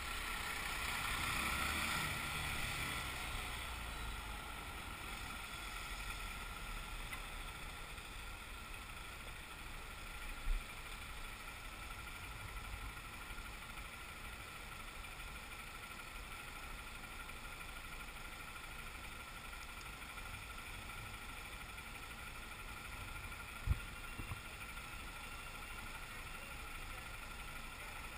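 Honda motorcycle's engine picked up by a bike-mounted camera: a little louder for the first few seconds as the bike slows, then a steady low rumble while it idles at a standstill. Two brief low thumps, about ten seconds in and near the end.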